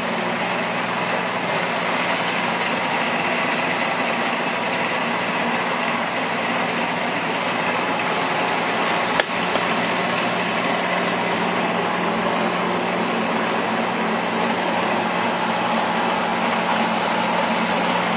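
Monarch 10EE lathe running: a steady mechanical hum with a low, even tone, and one sharp click about nine seconds in.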